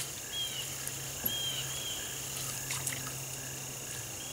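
Steady chorus of crickets and other insects trilling at the pond's edge, with evenly repeated short chirps and a few higher chirping notes over a low steady hum. A sharp click comes right at the start, and a few fainter clicks come later.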